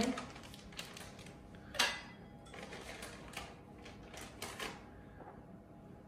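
Crinkling and rustling of a bag of corn flour being handled and opened, in a string of short crackles with the loudest about two seconds in, dying down near the end.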